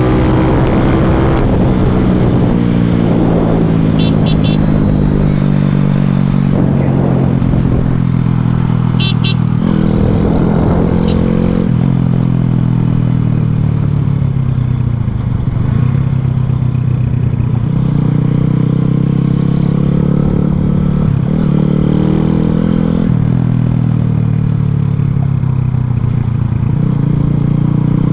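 Boom Vader minibike's single-cylinder engine, bored out to 141 cc and fed by a Nibbi carb, running under way, its revs rising and falling several times.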